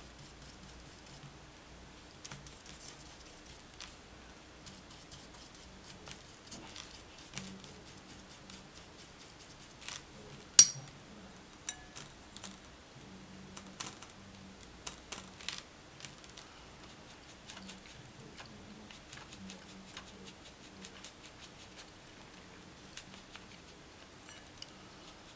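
Faint taps and light scrapes of a watercolour brush working on crepe paper and on a ceramic plate used as a palette, with one sharp click about ten seconds in.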